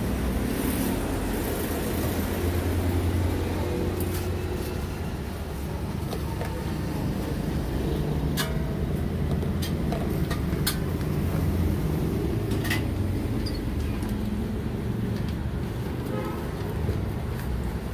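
Steady low rumble of road traffic, with a few sharp clinks scattered through it.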